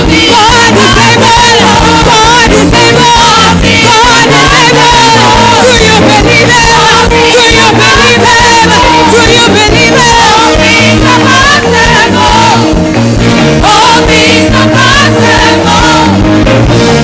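A church congregation sings loudly with gospel praise music, voices over a steady beat and a moving bass line.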